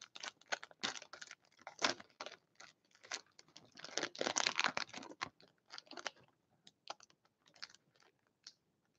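Foil wrapper of a hockey card pack crinkling and crackling as it is peeled open by hand: faint, irregular crackles, densest around the middle and thinning out toward the end.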